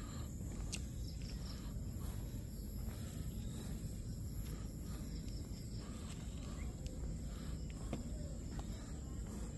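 A steady chorus of insects with a continuous high-pitched buzz, over a low rumble. Faint footsteps fall at a regular pace on the paved path.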